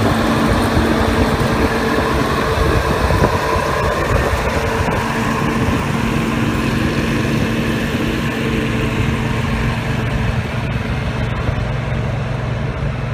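Bobcat T650 compact track loader's diesel engine running steadily under load as it pushes a laser-guided grader attachment across dirt, with a low rumble and a steady hum, growing slightly fainter near the end as the machine moves off.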